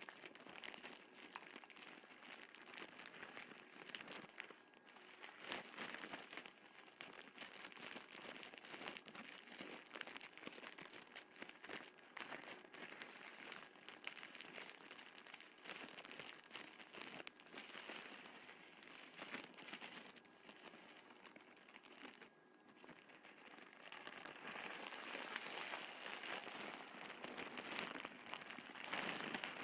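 Kinetic sand being handled, squeezed and crumbled: a dense run of small crackles and crunches that grows louder over the last few seconds.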